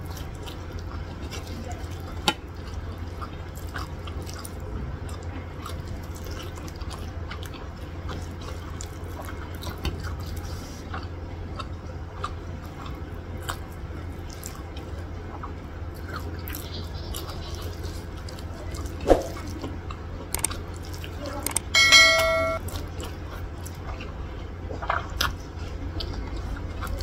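Close-up wet chewing and mouth sounds of someone eating soft rice and curried vegetables by hand: many small smacks and clicks over a steady low hum. A sharp knock a little past two-thirds of the way through, and a brief high-pitched tone about 22 seconds in, the loudest sound.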